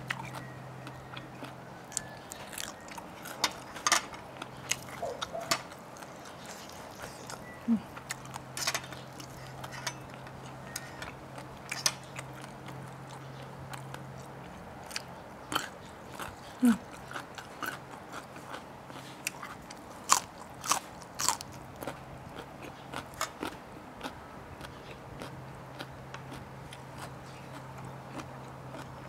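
Close-miked mouth sounds of eating crispy-skinned fried chicken: biting and chewing, with sharp crunches and clicks at uneven intervals.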